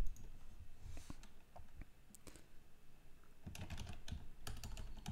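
Typing on a computer keyboard: a few scattered keystrokes, then a quicker run of them over the last second and a half.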